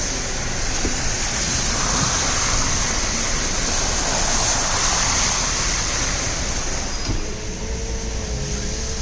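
Steady hiss of rain and tyres on a wet road, heard from inside a moving car with a window open; it swells for a few seconds in the middle.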